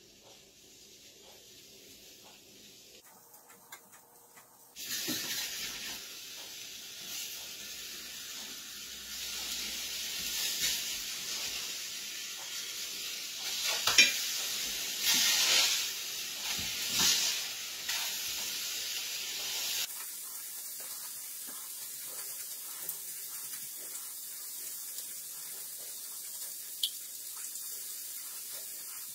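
Fresh tuna steaks sizzling in a hot frying pan. The sizzle starts about five seconds in, grows louder in the middle with a sharp knock as the fish is turned with a spatula, and settles to a steadier, softer sizzle for the last third as teriyaki sauce is brushed on.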